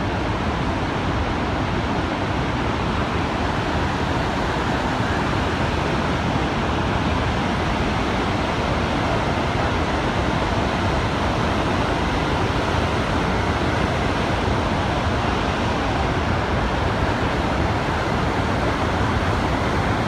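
Steady, loud rush of Iguazu Falls at the Devil's Throat: huge volumes of water pouring down and churning through the rocks close below, an even roar with no breaks.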